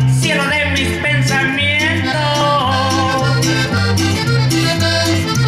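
Norteño music played live: a button accordion carries the melody over a bass line that changes note about twice a second, with a steady percussion beat.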